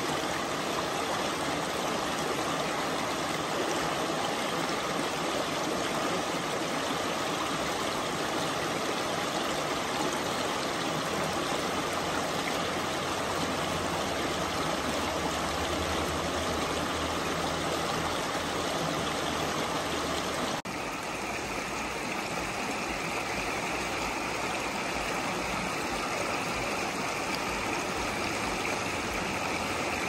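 Shallow rocky stream rushing steadily over stones. About two-thirds of the way through, the sound changes suddenly to a thinner, brighter rush.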